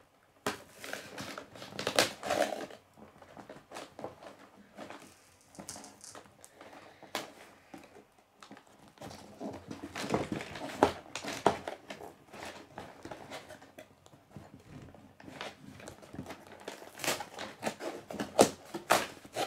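A cardboard Lego set box being handled and opened by hand: irregular scrapes, taps and tearing of cardboard, coming in several spells with quieter gaps between.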